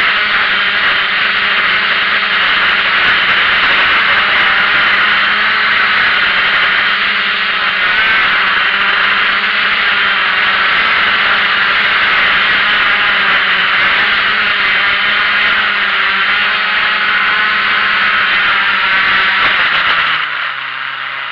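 Small quadcopter drone's motors and propellers running steadily, loud as heard from its own onboard camera. About twenty seconds in, the drone touches down and the motors spin down, the sound falling away.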